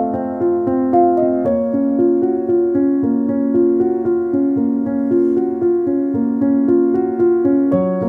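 Background music: a keyboard plays a steady, repeating run of notes over held chords, the harmony shifting about one and a half seconds in and again near the end.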